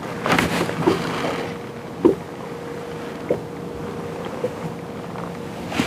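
Fishing-boat ambience: a steady low hum under a wash of wind-like noise, with a few light knocks and bumps, the sharpest about two seconds in.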